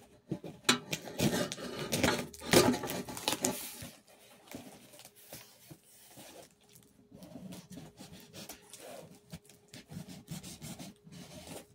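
Rustling, rubbing and scraping as a mailed package is opened and handled by hand. The scrapes are louder and closer together in the first few seconds, then quieter and more scattered.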